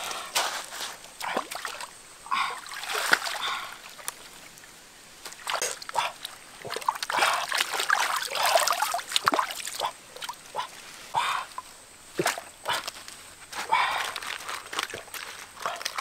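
Lettuce leaves swished and rinsed by hand in shallow stream water: irregular splashing and sloshing in bouts, heaviest around the middle.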